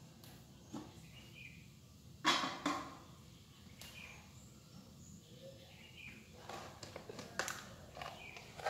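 Metal wok lid lifted off and set down with two clanks about two seconds in, followed later by a few lighter clinks of cookware.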